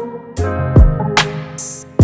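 Background music with a steady beat: drum hits about every second under held, pitched chords.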